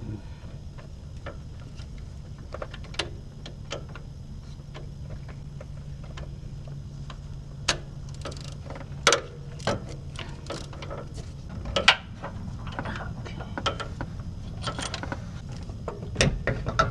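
Irregular clicks and metallic taps of hand tools working on engine-bay parts, with a few louder knocks, over a steady low hum.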